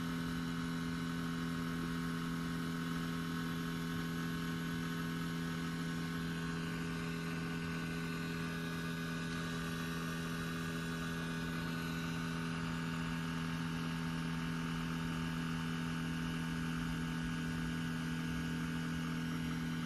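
Steady electrical hum from the rear of a 2016 Lexus RC F, with two strong low tones and a fainter higher whine, unchanging throughout. The owner guesses it is an automatic system completing a cycle, such as the evaporative fuel (EVAP) system self-adjusting.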